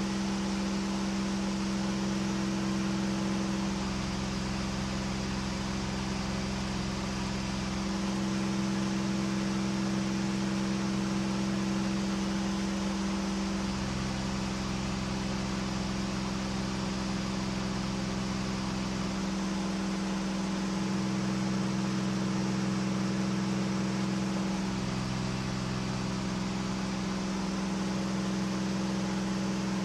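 KR2 homebuilt airplane's engine and propeller droning steadily at reduced climb power, about 2,600 rpm, heard inside the small cockpit under a hiss of air noise.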